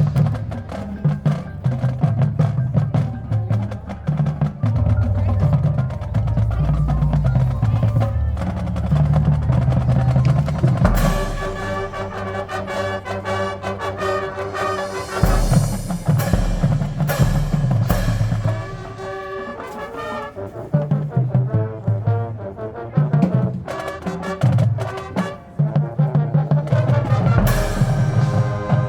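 Marching band playing its field show: drums and low brass at first, then the full band with brass comes in loudly about 11 seconds in, with a few sharp accented hits after it. The music softens for a while, then the full band swells again near the end.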